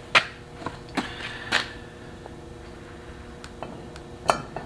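Metal knocks and clinks as a bell housing is fitted onto a Yanmar KM2-A marine transmission: a sharp knock just after the start, two more within the next second and a half, a few light ticks, and another sharp knock near the end.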